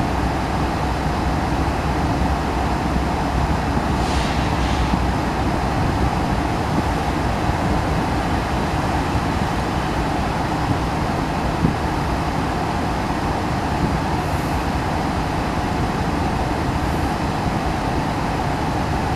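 Steady low rumble and hiss of a slow-moving freight train of covered hopper cars rolling past, heard from inside a parked car. Two brief hissing swishes come about four and fourteen seconds in.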